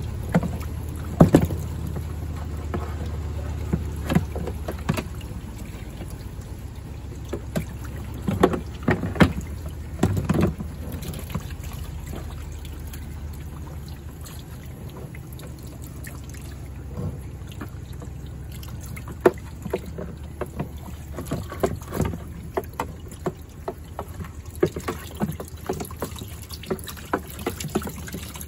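Water from a utility-sink sprayer running onto a shop vac's dirt-caked filter and red plastic housing, a steady rush. Frequent knocks and clunks come through it as the plastic housing is handled and bumped against the sink.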